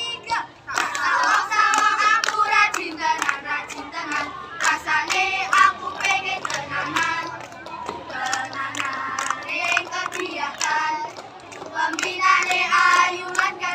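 A group of children singing and chanting a scout yel-yel cheer-song together, with hand claps throughout.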